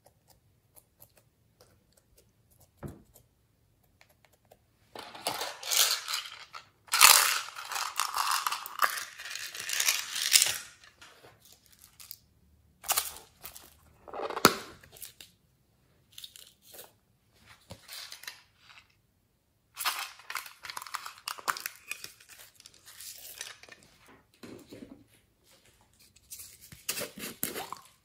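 Small plastic topping containers being handled, opened and shaken out over slime in a glass dish: irregular bursts of rustling and rattling with quiet gaps between them.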